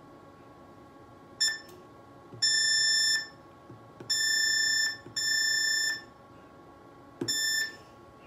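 Touchscreen control panel of a shockwave therapy machine beeping as its buttons are pressed: five electronic beeps, a short one first and then longer ones lasting up to most of a second. A faint steady electronic whine runs underneath.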